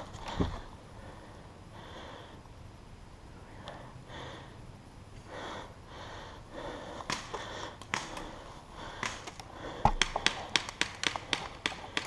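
Breathing and sniffing close to a head-mounted mic, followed by a quickening series of sharp clicks over the last few seconds.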